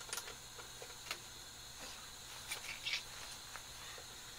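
Faint scattered clicks and light taps from hands and tools working on a snow blower, a few single clicks a second or so apart.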